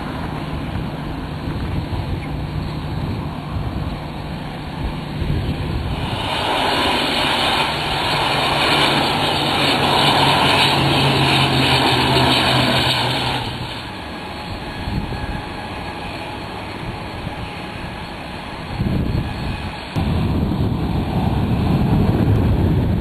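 Airliner engines heard from beside the runway in a string of short clips, the sound changing abruptly at each cut. Airbus A320-family jets run on the runway and on approach, and a small high-winged regional airliner lands. The loudest stretch, with a steady low drone, comes from about a third of the way in to just past the middle, during the regional airliner's landing.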